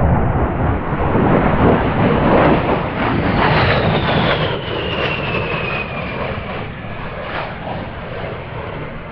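A-10 Thunderbolt II's twin TF34 turbofan engines roaring as the jet passes, with a high whine that slides down in pitch through the middle. The noise then fades as it moves away.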